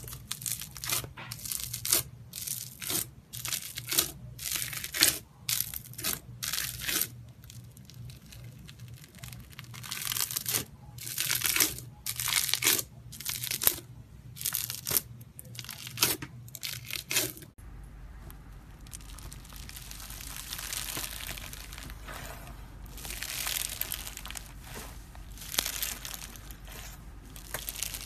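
Hands pressing and squishing slime. First a bubbly green slime gives short, sharp crackling pops about once a second, with a pause of a few seconds in the middle. After an abrupt change about two-thirds of the way in, foam-bead slime (floam) is worked by hand with a steadier crinkling crunch.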